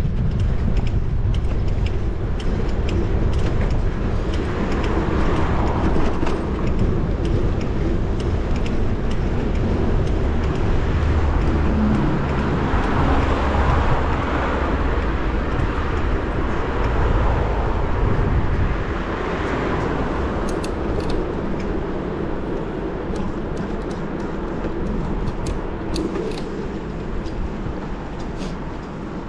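Street traffic heard from a moving bicycle, with a steady wind rumble on the action-camera microphone. A vehicle swells up and passes about halfway through, and a few light clicks and knocks come near the end.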